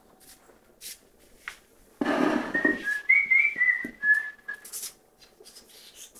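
A person whistling a short run of high notes that step up and down in pitch, just after a loud noise close to the microphone about two seconds in.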